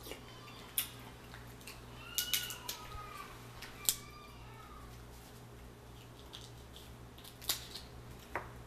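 King crab leg shell cracking and snapping as it is broken apart by hand: a handful of sharp, separate cracks spread over several seconds, over a low steady hum.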